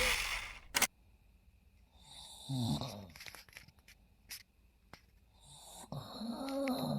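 A man snoring softly in his sleep: two snores, one about two and a half seconds in and one near the end, light and purring rather than harsh. A sharp click comes just under a second in.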